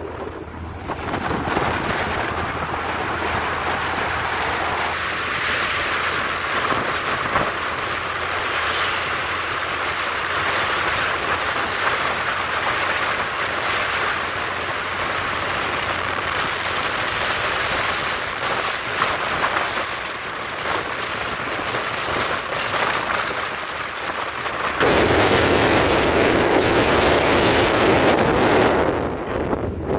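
Wind rushing over the microphone while moving along a road, mixed with tyre and passing-traffic noise. It grows louder and deeper for the last few seconds.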